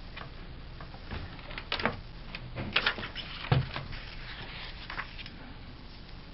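Hands handling a Dell Latitude D830 laptop's plastic screen bezel and lid: a few scattered clicks and taps, the loudest a dull knock about three and a half seconds in.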